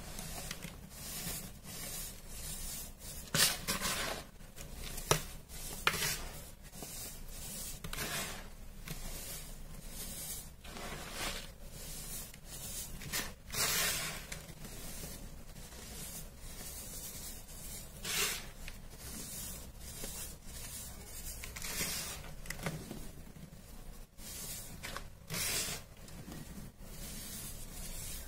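Hands squeezing and crumbling clumps of baking soda powder in a plastic tub: soft crunching and gritty rubbing in irregular strokes, a few every couple of seconds, as the powder packs and sifts through the fingers.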